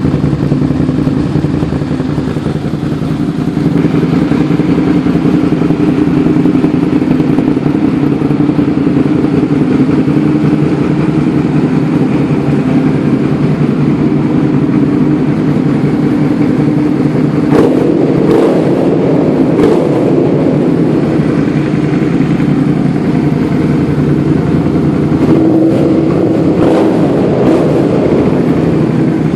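Suzuki SV650's 90-degree V-twin engine, fitted with an aftermarket carbon-fibre slip-on exhaust, idling steadily, with a few quick throttle blips about two-thirds of the way through and again near the end.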